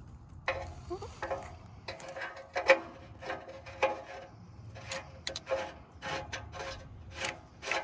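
Ratchet wrench clicking in short, uneven strokes, about one or two clicks a second, as a part on the engine is threaded in and tightened.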